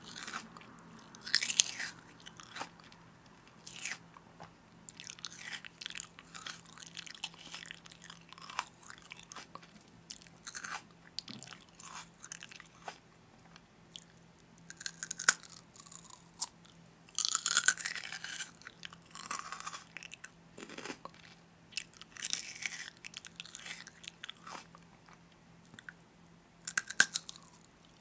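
A person biting and chewing crunchy food close to the microphone, in irregular crackling bursts with short pauses between them.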